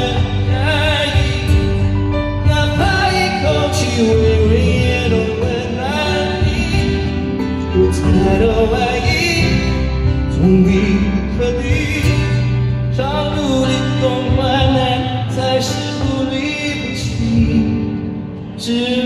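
Live acoustic ballad: a male voice singing in Mandarin over strummed acoustic guitars and keyboard.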